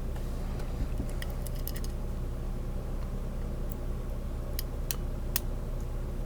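Small metallic clicks and ticks of a lock pick and tension wrench working in the keyway of a Kryptonite disc padlock: a quick cluster about a second in, and three sharper clicks around five seconds. A steady low hum sits under them.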